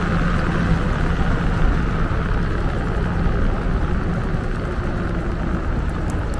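Electric skateboard riding on pavement: a steady rumble of wheels rolling, with wind rush and a faint low hum.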